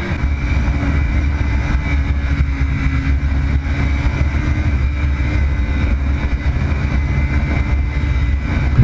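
Motorcycle running steadily on the move, under a loud, even low rumble.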